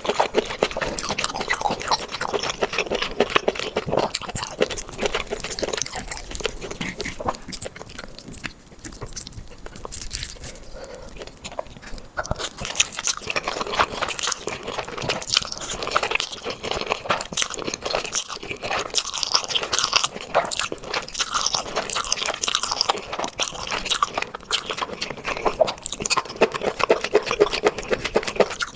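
Close-miked chewing and crunching of seafood: a dense run of rapid crackly crunches, easing off for a few seconds about a third of the way in, then picking up again.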